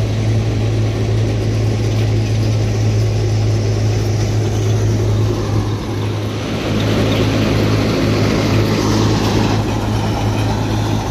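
Tractor-powered Punni back-to-back thresher running steadily: a loud, even low drone from the machine and its tractor, with the rushing noise of chopped straw blown through the delivery pipe into the trolley. The rushing noise turns hissier from about six seconds in.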